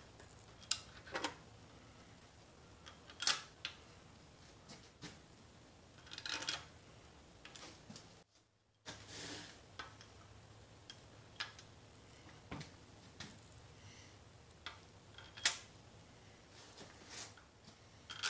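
Scattered light metal clicks and short scrapes, a second or more apart, as cylinder head bolts and a hand tool are set into an engine's cylinder head and run down by hand. The sound drops out for about half a second partway through.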